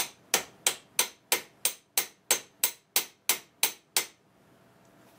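Ball-peen hammer tapping the end of a steel shaft's square post in a steady rhythm, about three ringing blows a second, peening the post over to lock a new steel cross-feed gear onto it. The blows stop about four seconds in, followed by a faint clink.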